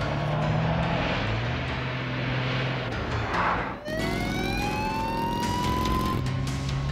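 A police siren wailing in slow rising and falling sweeps over running engines. About four seconds in, the sound cuts off abruptly and the siren starts again low and climbs.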